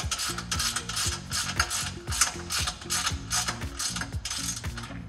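Hand ratchet with a 13 mm socket swung back and forth, its pawl clicking in quick runs of a couple of strokes a second as it runs down the exhaust flange bolts.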